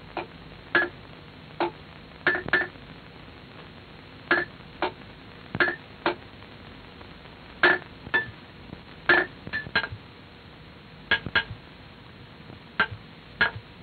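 Sledgehammers striking a row of metal wedges set in a groove in marble, driving them in to split a block from the quarry face by hand. It is an uneven run of sharp metallic clinks, often two in quick succession.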